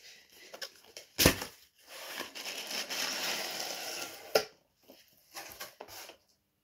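Cardboard mailer box being opened by hand. There is a sharp crack about a second in, then a couple of seconds of rasping, tearing cardboard as the lid is worked loose and pulled up, a snap as it comes free, and a few light taps.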